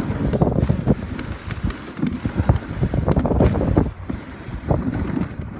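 Dog sled pulled at speed over a packed snow trail: runners scraping and the frame jolting with scattered knocks, under a heavy rumble of wind on the microphone.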